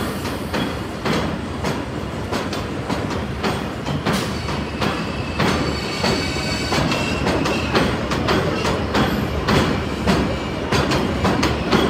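New York City subway train running along the elevated steel structure overhead. Its wheels clack over the rail joints in a quick, uneven run of clicks, with a faint high wheel squeal around the middle.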